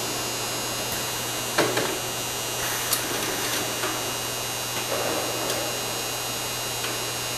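Automated engine rack storage buffer running in a factory: a steady electrical hum with scattered clicks and clanks, the loudest a little over a second and a half in.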